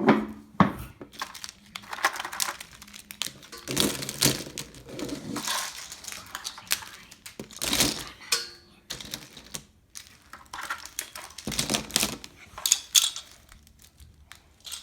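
Small plastic toy figures and their accessories clattering and rattling as they are handled and gathered up, a run of irregular clicks and knocks with some rustling.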